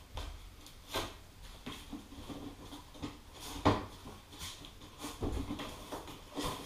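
Plywood frame and a metal canopy extractor unit being handled and shifted on a worktop during a test fit: scattered knocks and scrapes, the loudest about a second in and a little past halfway.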